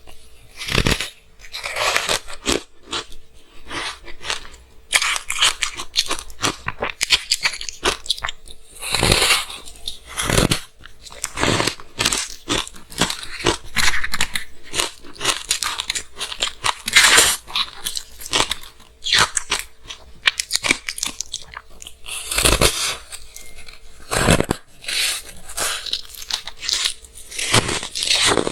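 Close-miked crunching and chewing of frozen matcha green tea ice: continuous sharp, irregular crackles as the ice is bitten and ground between the teeth.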